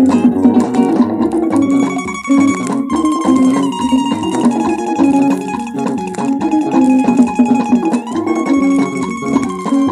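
Instrumental passage of a 1979 Nigerian highlife record: plucked guitar lines over a steady band, with long held notes above that step in pitch every second or two.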